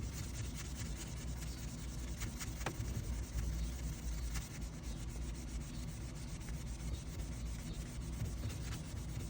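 Foam polishing pad rubbing back and forth by hand over a plastic car LCD screen, working a mild paint polish with light pressure.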